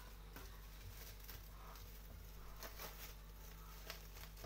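Faint crinkling and rustling of a thin plastic bag being peeled off a bowl of risen dough, in scattered short crackles over a steady low hum.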